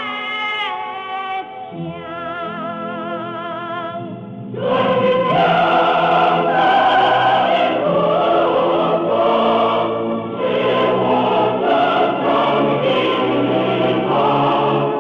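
Background music: a single singer holding notes with a wide vibrato, then about four and a half seconds in a full choir with accompaniment comes in, louder.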